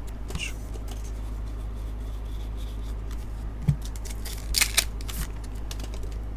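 Baseball cards handled and slid against one another, then a foil Topps Pro Debut pack wrapper crinkled and torn open, a short burst of crackling about two-thirds of the way in. A low steady hum runs underneath.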